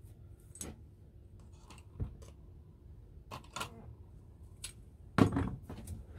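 Small metal parts of an old spring scale clicking and tapping as they are handled and set down on a workbench, with a sharper knock about five seconds in.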